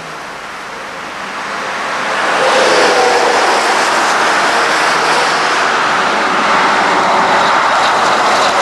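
Volvo heavy truck passing close on a highway: engine and tyre noise builds over the first two and a half seconds, then stays loud and steady with a low engine hum.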